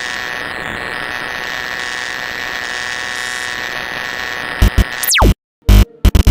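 Electronic static and glitch sound effects: a steady hiss with a high, thin whine, then near the end a string of sharp, very loud static bursts, a fast falling electronic sweep and a brief dead cut-out.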